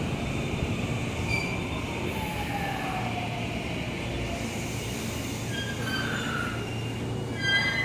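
JR West 223 and 221 series electric train rolling slowly along the platform as it comes in to stop, with a steady rumble, a falling motor whine in the first few seconds, and a brief high squeal near the end.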